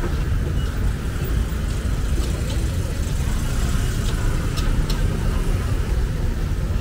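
City street traffic: vehicles passing with a steady low rumble and a few faint clicks and ticks over it.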